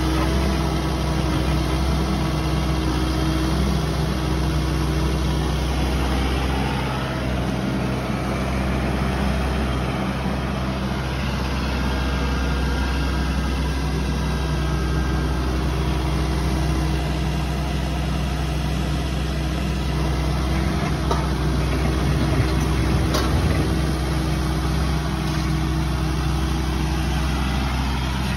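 Takeuchi TB257FR compact excavator's diesel engine running steadily at working speed while the arm and bucket dig soil, with a couple of short knocks about three-quarters of the way through.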